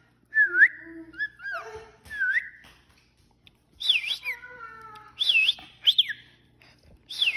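Cockatiel whistling a string of short, swooping notes that dip and rise again, about eight in all, with a couple of chirps mixed in.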